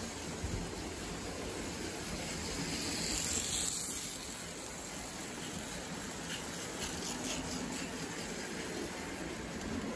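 Lionel postwar O gauge steam locomotive and freight cars running on three-rail tubular track: a steady rolling rumble and hiss. It grows louder with more hiss as the locomotive passes close a few seconds in, then faint ticks follow as the cars roll past.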